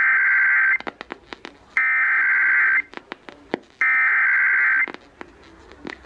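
Emergency Alert System SAME header data tones coming through a portable FM radio's speaker: three buzzy, warbling data bursts about a second long each, a second apart, which encode the start of a tornado warning. Short sharp clicks sound in the gaps between the bursts.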